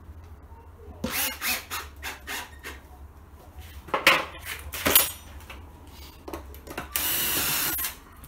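Knocks and clicks of parts being handled while a plastic hive box is screwed together, with two sharper knocks near the middle, then a cordless drill running steadily for about a second near the end, driving in a screw.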